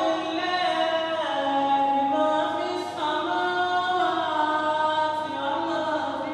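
Several young men chanting together unaccompanied, a melodic religious recitation in long held notes that step up and down in pitch.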